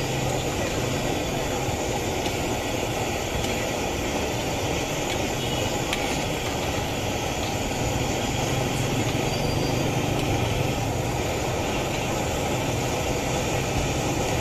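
Steady sizzling of potato pakoras deep-frying in a large karahi of hot oil, over a steady low rumble.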